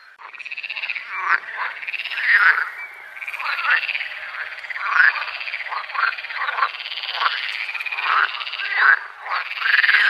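A chorus of many frogs calling at once. A continuous fast trill runs underneath, and louder croaking calls overlap it about once a second.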